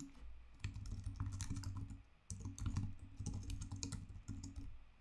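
Typing on a computer keyboard: fast runs of keystrokes, with a short pause about two seconds in.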